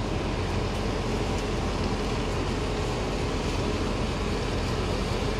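Steady low engine drone with a constant hum under a faint hiss, unchanging throughout.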